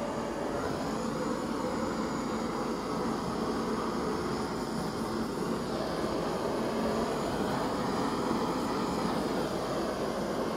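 Small handheld gas torch burning with a steady hissing rush of flame, passed over wet acrylic pour paint to bring up the silicone cells.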